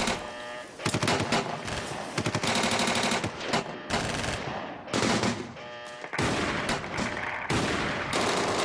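Bursts of automatic gunfire: rapid rattles of shots broken by short pauses.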